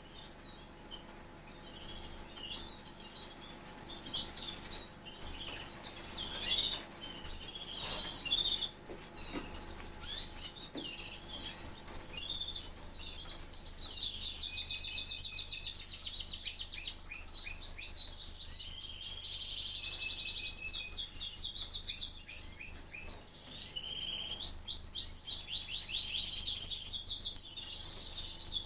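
Fife canaries chirping and calling in short scattered notes, then a long song of rapid trills and rolls starting about nine seconds in and running on with only brief breaks.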